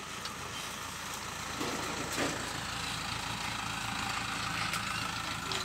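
Dump truck engine idling steadily, getting a little louder about a second and a half in.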